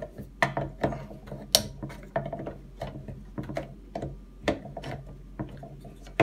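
Irregular sharp plastic clicks and knocks as the white plastic locking button of a Bugaboo Cameleon 3 front wheel is forced with pliers along its black plastic rail to work it off. The sharpest click comes about one and a half seconds in.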